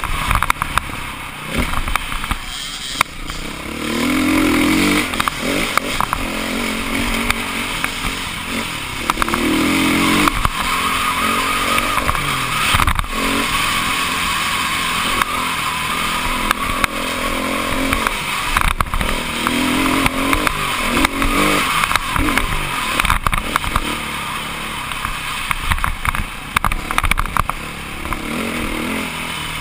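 Dirt bike engine running on a trail ride, its pitch rising and falling repeatedly as the throttle opens and closes, with a few sharp knocks from bumps.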